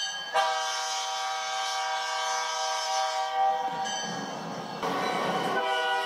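Diesel locomotive air horn sounding a chord in one long blast of about three and a half seconds. Train noise follows without the horn, then a second horn blast starts near the end.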